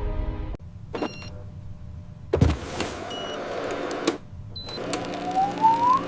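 Short high electronic beeps, clicks and a thud, then a motorised whine that rises and falls in pitch.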